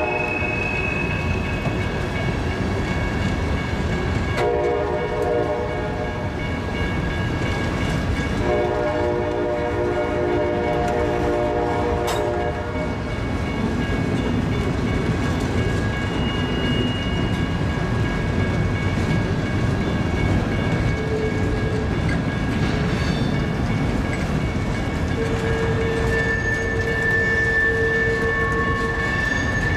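CSX freight train of tank cars and boxcars rolling past a grade crossing: a steady rumble of steel wheels on rail with clickety-clack over the joints. A multi-chime locomotive horn blows several times in the first half, its longest blast lasting about three seconds. Thin, high wheel-flange squeals ring out in the second half.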